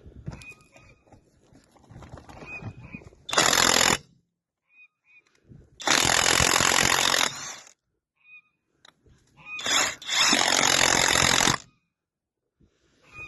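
Chinese 21 V cordless impact wrench, rated 1200 N·m, hammering on wheel nuts that have long gone unremoved, in three bursts: a short one of under a second, then two of about two seconds each.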